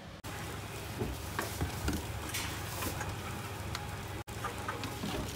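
Tomra reverse vending machine for cans and bottles running with a steady low hum, with scattered clicks and light knocks from its intake mechanism.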